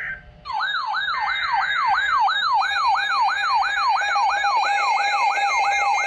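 Electronic siren-style alert tone: a fast yelp that sweeps up and down about three times a second. From about two and a half seconds in, steady alarm tones are layered on top.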